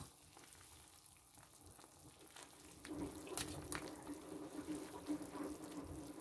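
A stainless steel pot of soup boiling. It is barely audible for the first three seconds, then a faint, steady bubbling comes in, with a few light ticks of a metal ladle against the pot as it is stirred.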